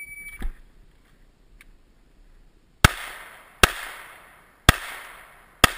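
Shot-timer start beep, a short high tone, followed about three seconds later by four handgun shots spaced roughly a second apart, each ringing out afterward.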